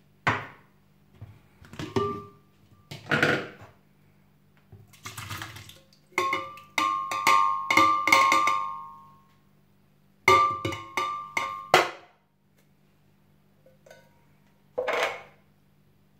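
Tin can of pineapple knocked against the rim of a glass blender jar to shake the pieces out, each knock making the glass ring; a quick run of knocks in the middle and a second run shortly after, with a few single clunks around them.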